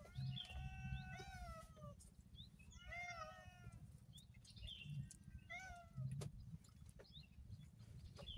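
A cat meowing several times: a long drawn-out meow at the start, then shorter meows about three seconds and about six seconds in. Short high chirps are scattered between them.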